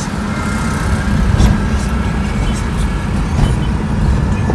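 Car cabin noise while driving: a steady low rumble of engine and tyres on the road, with a couple of faint ticks.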